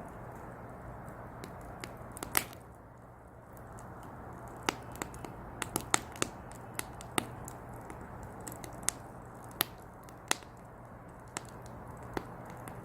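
Firewood burning in a small brazier, crackling with irregular sharp pops over a soft steady hiss; one loud pop about two seconds in and a run of closely spaced pops through the middle.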